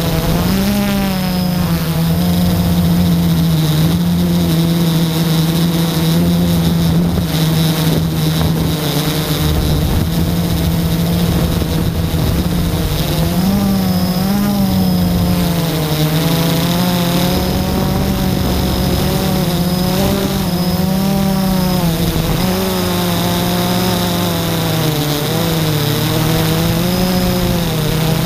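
Blade 350 QX quadcopter's electric motors and propellers whining in flight, picked up by the camera on board; the pitch keeps rising and dipping as the throttle changes.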